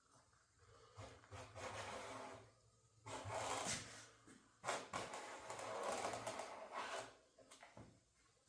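Scoring knife scraped along 1/8-inch plexiglass against a straight edge, three long rasping strokes with short pauses between, deepening the score line.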